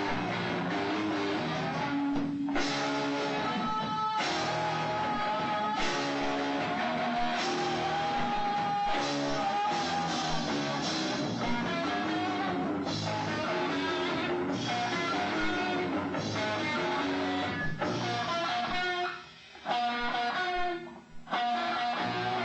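Rock band playing live with electric guitar to the fore, recorded lo-fi. About 19 seconds in the playing breaks off, leaving a few short bursts of music.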